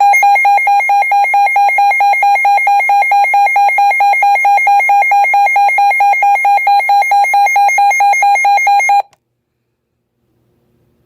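Emergency Alert System alert tone: a loud electronic beep pulsing rapidly and evenly on one pitch. It cuts off suddenly after about nine seconds.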